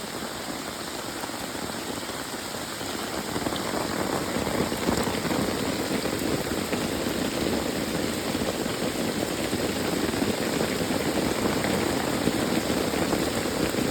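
Heavy rain coming down and striking a military poncho close overhead: a dense, steady patter that grows a little louder about four seconds in.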